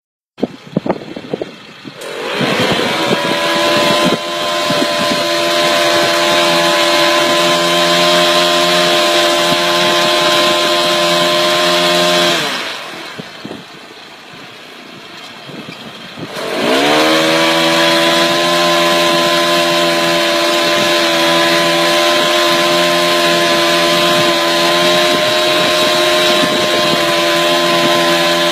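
Tree-trimming machine's motor spinning up to a steady high whine, running about ten seconds, then winding down. It spins up again about four seconds later with a rising pitch and runs steadily to the end.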